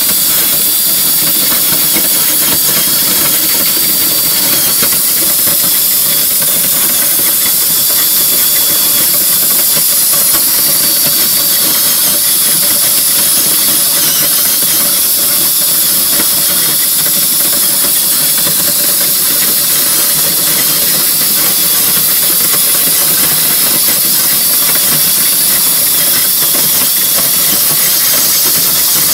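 Power drill driving a grain rescue auger, running steadily as shelled corn streams out of the auger spout onto the corn pile. One continuous, even, hissing noise with no breaks.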